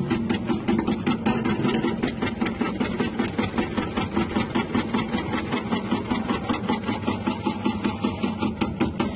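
Electric tuber-chip slicing machine with a small 180-watt motor running steadily, with a regular beat about five times a second.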